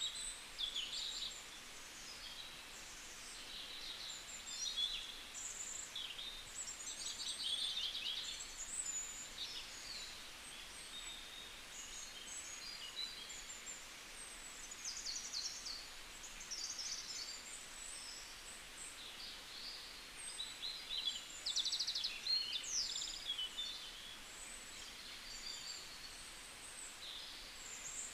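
Several birds chirping and singing, a busy overlapping mix of quick high calls, whistles and short trills over a faint steady hiss.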